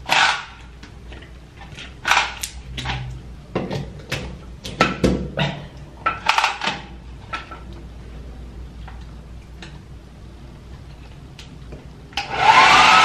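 Scattered clicks and knocks as a hair dryer's cord and plug are handled. Near the end the hair dryer switches on: a loud rush of air with a motor whine that rises as it spins up.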